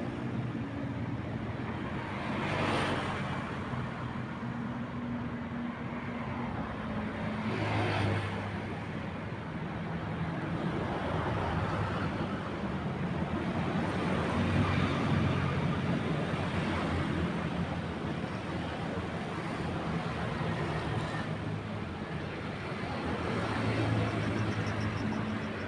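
Boat engine running steadily, under a rushing noise that swells several times.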